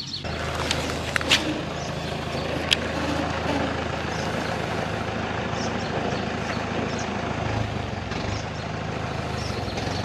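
A motor vehicle engine running steadily with a low hum, with two sharp clicks about one and three seconds in.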